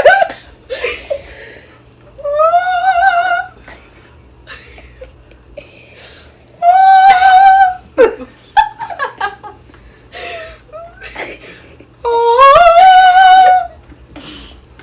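A person's voice making three long, high-pitched, drawn-out sounds, each lasting over a second: the first wavers, the second holds steady, and the last rises at its start. Short bits of laughter come between them.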